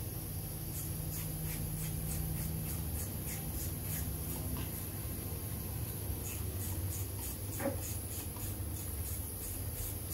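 A ratchet wrench clicking in short runs of quick strokes as it tightens the bolts of an engine's oil pump pickup tube, with a single louder metal tap about three-quarters of the way through, over a steady low workshop hum.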